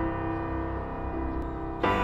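Lyrical accompaniment music for the routine: a held chord fading, then a new chord coming in sharply near the end.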